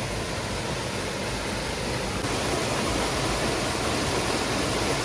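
Small waterfall rushing steadily, with an even hiss of falling water that gets a little louder about two seconds in.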